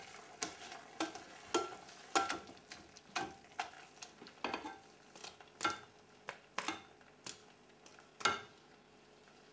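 A plastic potato masher knocking and squishing against the bottom of a pot while mashing cooked potatoes, carrots and spinach. The strokes come unevenly, about one or two a second, and stop near the end.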